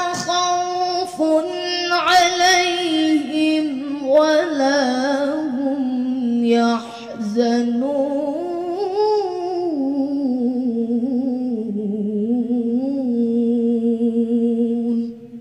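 A boy reciting the Quran in melodic tilawah style into a microphone, drawing out the closing words of a verse in long, ornamented, wavering phrases. The chant stops abruptly near the end.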